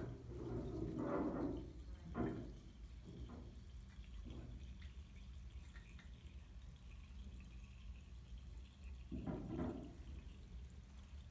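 Coloured water draining from one plastic bottle into another through a tornado-tube connector, gurgling in a few separate glugs (several in the first few seconds, another near the end) with a faint trickle between.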